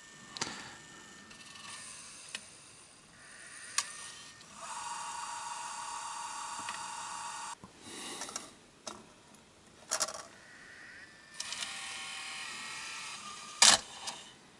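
Sony Video Walkman's Video8 tape mechanism running with its casing off after play is selected: small motors whirring in two stretches of a few seconds each, with sharp mechanical clicks in between, the loudest click near the end.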